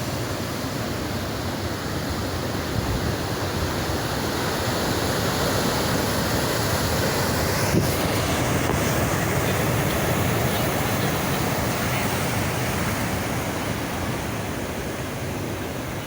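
Sea surf washing onto the shore: a steady rush that slowly swells and then eases off near the end.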